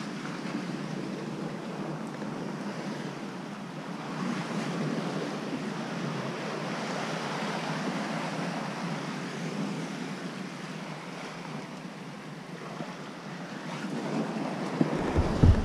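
Steady rush of ocean surf against the rocks below, mixed with wind on the microphone. Near the end there are a few loud, low thumps.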